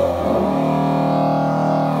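Miraphone tuba playing a long, low sustained note. About half a second in the pitch shifts, and it then holds steady on a new note.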